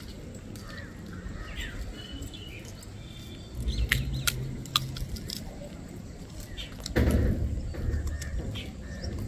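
Small birds chirping and calling, with a few sharp clicks. Two spells of low rumbling come in, the louder from about seven seconds in.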